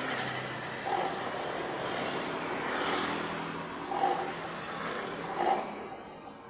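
Petrol car's SUOS exhaust running with a deep, wet growl, with a few brief swells.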